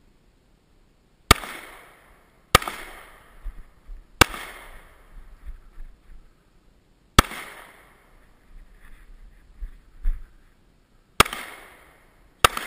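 Handgun shots: six single shots at uneven intervals, one to four seconds apart, each a sharp crack followed by a trailing echo. The last two come about a second apart near the end.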